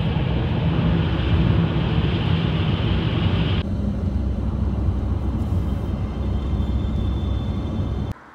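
Steady road noise of a car driving, heard from inside the cabin, a low rumble under a hiss. About three and a half seconds in the sound cuts to a duller rumble with less hiss, and it stops abruptly near the end.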